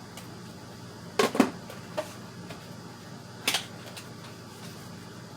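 Sharp clicks and knocks of RAM-kit packaging being handled and opened: two close together a bit over a second in, a faint one near two seconds, and another about three and a half seconds in, over a steady low hum.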